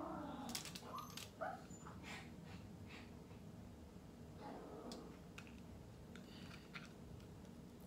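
Faint sounds of eating snow crab: chewing with the mouth closed and breathing through the nose, with a few small clicks as the crab shell is picked apart by hand.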